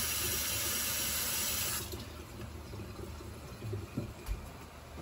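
Kitchen tap running with a steady hiss, shut off abruptly about two seconds in; a couple of light knocks follow a little later.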